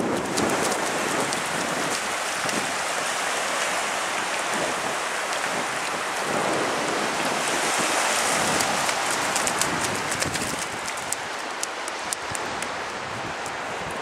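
Steady hiss of shallow sea water washing at the edge of a sandy beach, with a small child's bare feet splashing through it; scattered short clicks and splashes run through the hiss.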